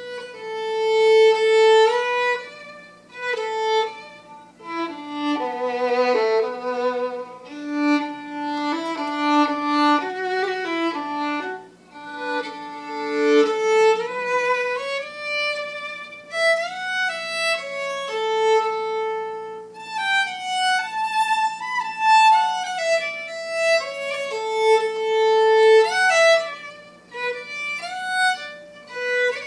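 Solo unaccompanied fiddle playing a slow tune, with long held notes between moving phrases.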